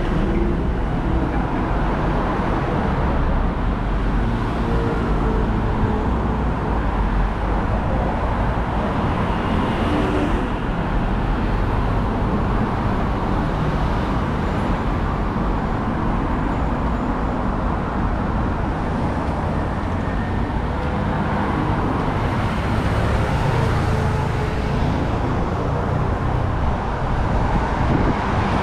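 City road traffic: cars and other vehicles passing, a steady low rumble of engines and tyres with no distinct single event.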